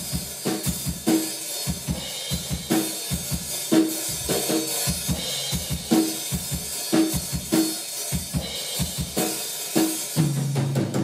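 Live rock band playing an instrumental passage between verses: a drum kit carrying a steady beat under electric guitar, with no vocals.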